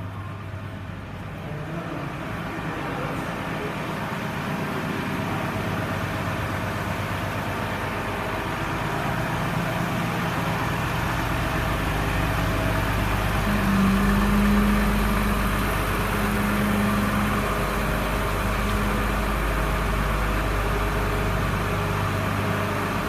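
A steady low mechanical hum, like an engine idling, growing slightly louder. From about halfway through, a deeper rumble and a held note come and go in stretches of a second or two.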